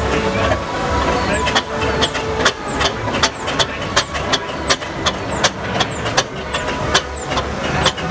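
Steam traction engine on the move, with repeated sharp metallic clanks about two or three a second, many followed by a short high falling squeak, over a steady low rumble.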